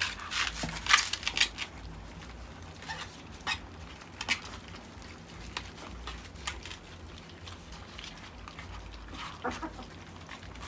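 Nearly four-week-old puppies eating puppy food from a tray: scattered clicks and knocks of paws and muzzles against the tray, busiest in the first second and a half.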